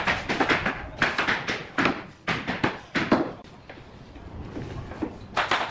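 Bamboo floor planks knocked and pressed into place over foam underlay: a string of short wooden knocks and clatters through the first three seconds, a lull, then more knocks near the end.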